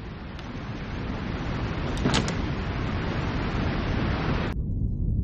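Science-fiction sound effect of a rushing, wind-like noise that builds slowly, with a brief high whistle about two seconds in. A little before the end the higher hiss cuts off suddenly, leaving a low rumble.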